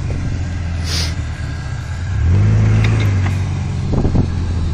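Great Wall Deer pickup's engine under load in deep mud, revving up about two seconds in and holding the higher revs as the truck tries to drive out. A few knocks sound near the end.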